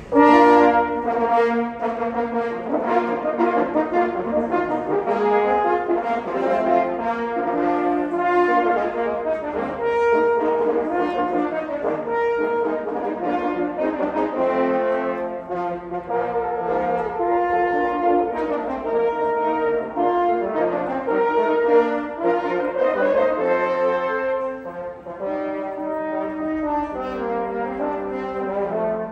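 A quartet of French horns playing together in harmony, sustained chords and moving parts. All four enter at once at a sudden start.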